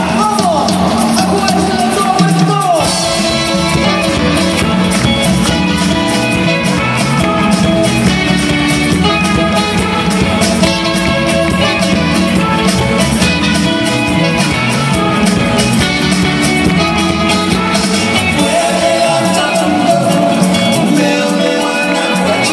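Upbeat dance music with a steady beat playing loud over an open-air stage sound system; after a few gliding notes the full beat comes in about three seconds in.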